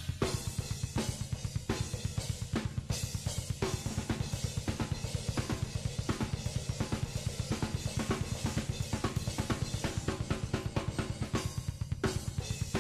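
Drum kit played at a fast tempo: a rapid, even run of bass drum strokes under snare hits, with cymbal crashes at the start, about three seconds in and near the end.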